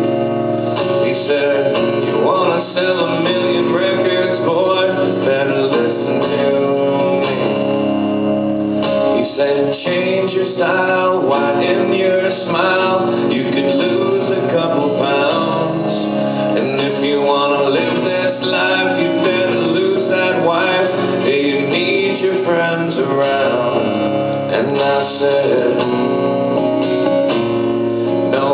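Country music with guitar playing continuously.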